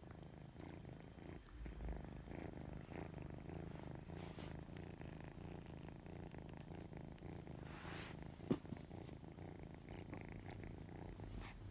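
A kitten purring steadily, a low continuous rumble, close to the microphone. A single sharp click sounds about eight and a half seconds in.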